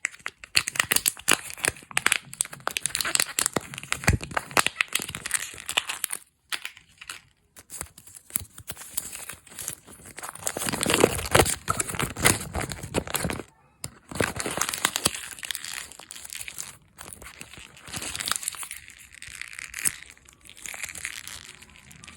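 Candy wrappers being crinkled and torn open by hand: dense, irregular crackling in long stretches, broken by a few short pauses and loudest about halfway through.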